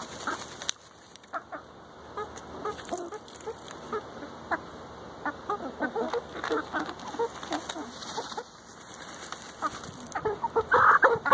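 Several hens clucking softly and repeatedly while dust-bathing, with scattered scratching and scuffing of dry dirt. A louder run of clucks comes near the end.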